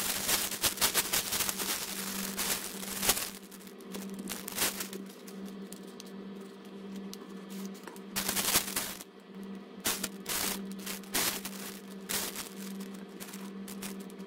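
Hands spreading and rubbing small pom-poms over a tray: a dense run of irregular rustling and scratchy clicks, busiest in the first few seconds and again near the end, over a steady low hum.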